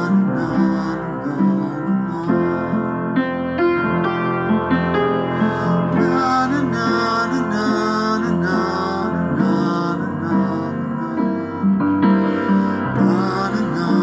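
Piano playing chords and melody between verses, with a man's voice singing along at times without words.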